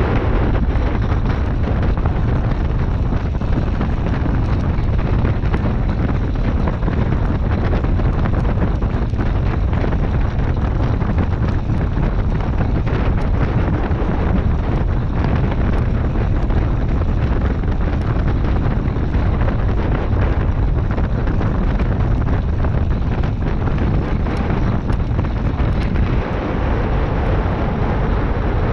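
Steady wind rushing over the microphone of a handlebar camera on a track bike riding at speed, over the rolling rumble of its tyres on the wooden velodrome boards.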